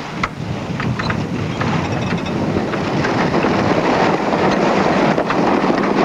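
Wind and water rushing past a racing sailboat under way as it comes about, with scattered clicks and knocks from the deck gear; the rushing grows louder and denser about halfway through.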